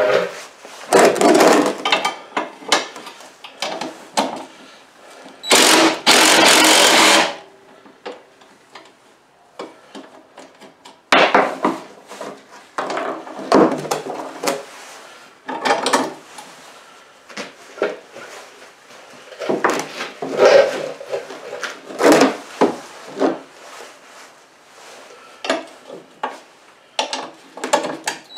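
Bolts being taken out of a mower seat's steel mount: clinks and knocks of a wrench on metal, broken by short runs of a Craftsman cordless impact driver, the longest lasting about two seconds around six seconds in.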